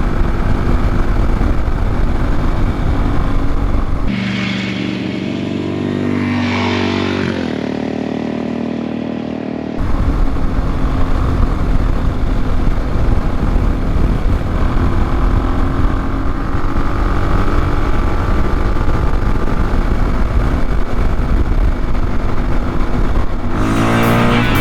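Motorcycle riding at road speed, wind rushing over the microphone with the engine running underneath. For a few seconds after about 4 s the wind drops and the engine note comes through clearer, falling in pitch as the bike slows, before the wind noise returns. Music with guitar comes in near the end.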